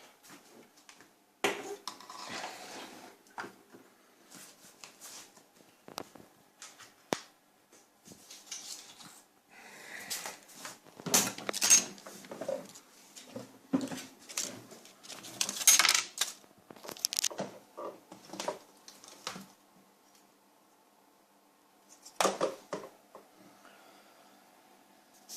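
Irregular clinking and clattering of small hard objects being handled, with rustling in between; the loudest clatter comes about halfway through, and it goes quiet briefly near the end.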